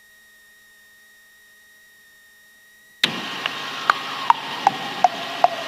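For about three seconds the sound drops almost out, leaving only a faint steady high whine. Then the idling engine of a 1978 Enstrom 280C helicopter cuts back in as a steady noise, with short falling blips about two and a half times a second. The engine is the turbocharged Lycoming four-cylinder, running at about 1500 RPM with the rotor clutch not yet engaged.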